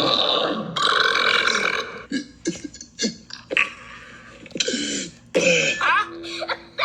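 A long, loud burp that breaks off briefly just before a second in, runs on to about two seconds, and is followed by a few short sputtering sounds and another brief burst near the end.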